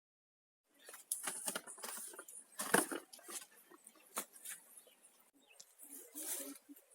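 Irregular rustling and crunching, footsteps through dry vegetation and plants brushing past, with scattered sharp cracks. It starts suddenly about a second in after dead silence.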